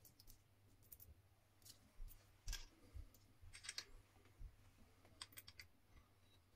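Faint, scattered clicks and clinks of small metal nuts and washers being handled and set onto bolts in a wooden block, a few sharp ticks at irregular intervals.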